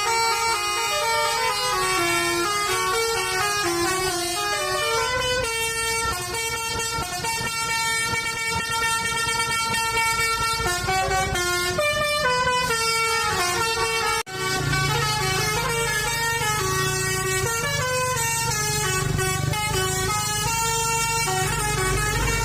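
Basuri telolet melody horns on buses, several playing stepped tunes over one another, with bus engines rumbling beneath. The sound breaks off for an instant about fourteen seconds in, after which the engine rumble is louder.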